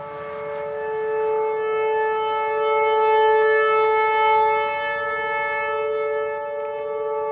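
Whelen Vortex rotating outdoor warning siren sounding a steady tone during a test, its pitch holding constant while its loudness swells and fades as the rotating head sweeps past.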